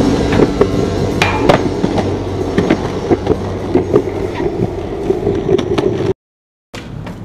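Skateboard wheels rolling on a concrete sidewalk: a steady rumble with scattered sharp clacks. The sound cuts out completely for about half a second near the end, then returns faintly.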